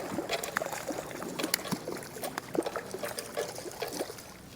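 Water trickling and dripping with small irregular splashes as a hooked speckled trout is handled at the side of a kayak, fading off near the end.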